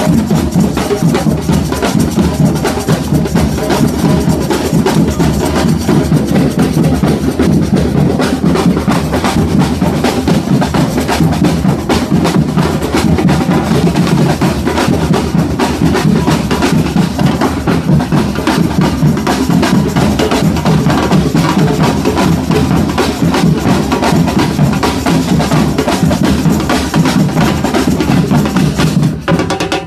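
Samba band drums playing a loud, busy rhythm together, deep bass drums under sharper, faster drumming. The full band comes in abruptly at the start, then briefly stops near the end before starting again.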